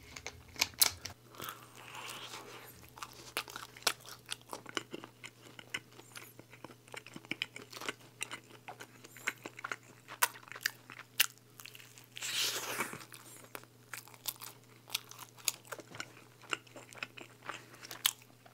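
Close-miked biting and chewing of stacked slices of thin-crust cheese pizza: many small crisp crunches and clicks, with a longer, noisier crunch about twelve seconds in.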